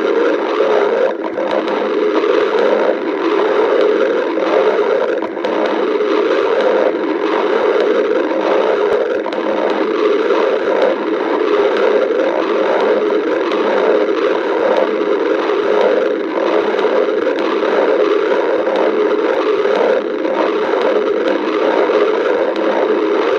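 A hungry stomach growling without a break, the growl wavering unevenly in level.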